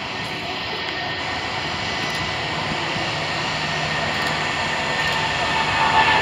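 Boeing 757's twin jet engines at takeoff thrust during its takeoff roll and lift-off: a steady jet noise that grows louder throughout, with a whine coming up near the end.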